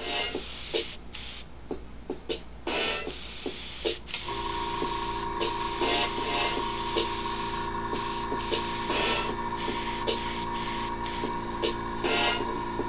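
Airbrush spraying thinned water-based acrylic paint, a hiss that starts and stops in short bursts as the trigger is worked. Background music with steady held tones runs under it from about four seconds in.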